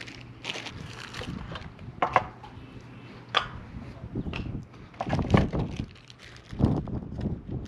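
Camping cooking gear being unpacked and set up by hand: irregular knocks, clatters and rustling, a handful of separate bumps, over a steady low hum.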